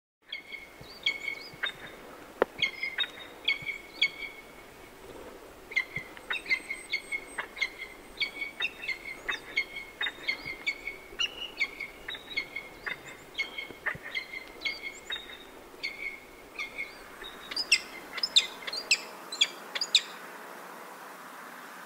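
Peregrine falcon giving its 'ee-chup' call, a call used between mates in courtship and at the nest: short notes repeated in bouts of several, a few a second, over a faint background hiss. Near the end comes a run of louder, sharper calls, then the calling stops.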